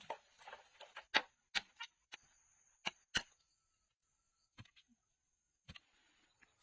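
A series of sharp, irregular clicks and knocks, about eight of them, the loudest a little over a second in and at about three seconds, over a faint steady high-pitched tone.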